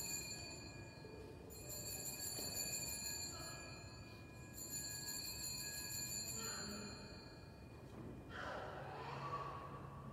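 Altar bells (Sanctus bells) rung three times, each a high, bright ringing of about a second and a half, the signal for the elevation of the host at the consecration. Two soft noises without ringing follow in the second half.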